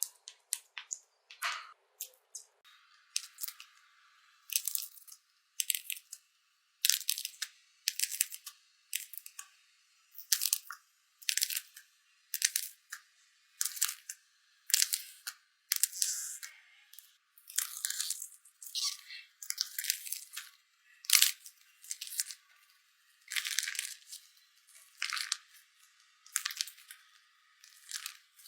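Slime being pressed and squeezed by hand, a crackling, crunchy burst about once a second, sounding thin with no low end.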